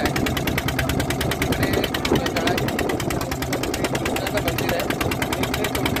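Engine of a small passenger ferry boat running steadily underway, a fast, even chugging of about ten beats a second.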